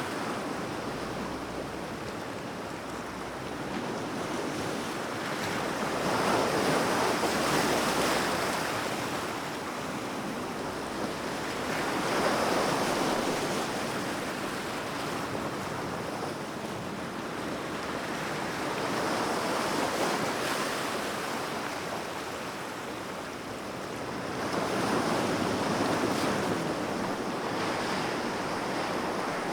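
Calm sea waves washing onto a beach, each wash swelling and falling back every five to seven seconds.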